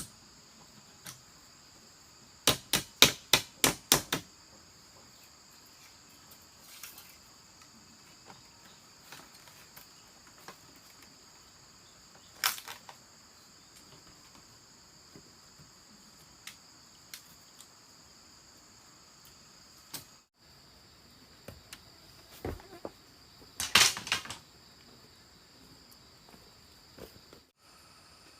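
Steady high insect chorus, broken by sharp knocks. There is a quick run of about seven strikes a few seconds in, a single knock about twelve seconds in, and a tight cluster of strikes near the end.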